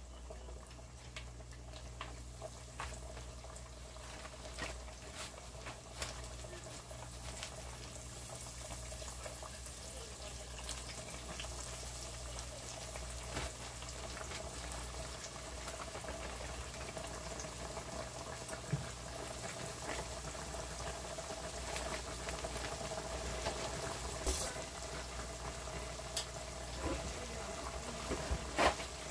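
Floured chicken legs and thighs deep-frying in a pot of avocado oil: a steady sizzling hiss with scattered crackles and pops, growing gradually louder as the oil bubbles up around the pieces.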